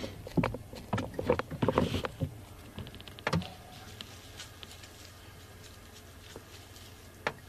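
Safari vehicle's engine running at low revs while it moves slowly along a sandy track. For the first two seconds or so there are knocks and rattles, with one more thump a little later. After that it settles to a steady low hum.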